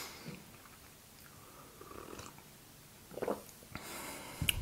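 Soft sipping of hot tea from a mug, followed by quiet mouth sounds.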